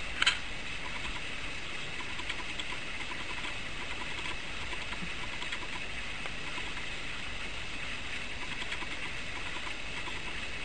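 A Bengal cat licking a puppy's fur: faint soft ticks over a steady hiss. There is one sharp click just after the start.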